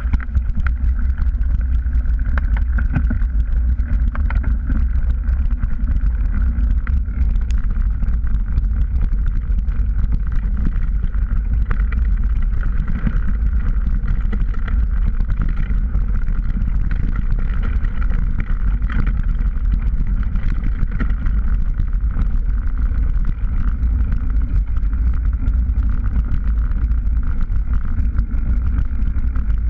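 Steady wind noise over the microphone and the rattle of a mountain bike riding over a dirt trail, picked up by a camera mounted on the handlebars.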